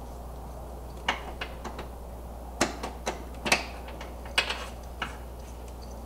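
About eight irregular sharp clicks and knocks from hands working on plastic trim and parts inside a car's open trunk, over a steady low hum.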